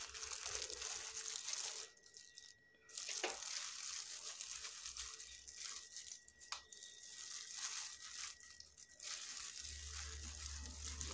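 Thin plastic bag worn as a glove crinkling and rustling as a hand picks boiled sardines apart in a plastic tub to remove the bones, with a couple of sharp clicks about three and six seconds in.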